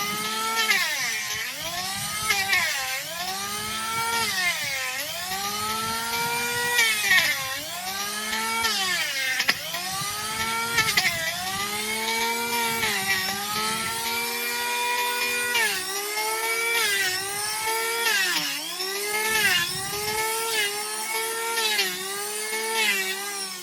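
Electric power tool grinding away at a donkey's overgrown hoof horn. The motor's whine sags in pitch each time it bites into the hoof and climbs back as the load comes off, again and again, every second or two.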